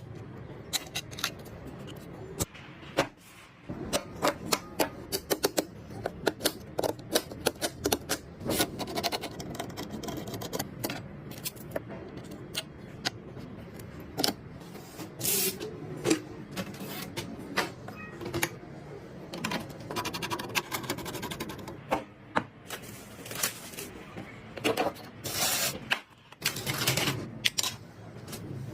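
Irregular clicks, taps and light knocks of computer hardware being handled and fitted together during a PC build, some close together in quick runs.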